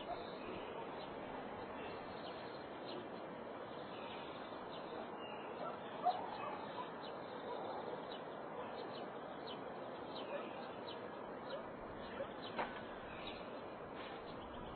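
Countryside village ambience: many small birds chirping over a steady background hum, with a brief louder call about six seconds in.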